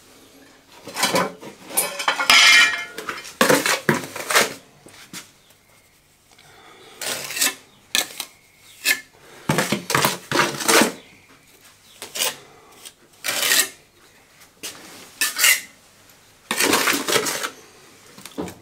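Cut tile pieces clinking and clattering as they are handled and tried in place: a string of irregular knocks and scrapes, with one ringing clink about two seconds in.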